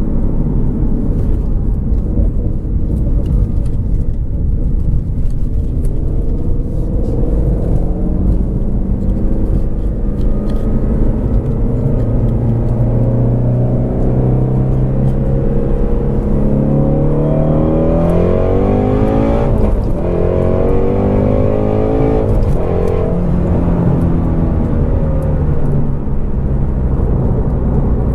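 Shelby GT350R's 5.2-litre flat-plane-crank V8 running under way, steady at first. About two-thirds of the way in it revs up, breaks briefly as if for a gear change, revs up again, then drops back as the throttle comes off.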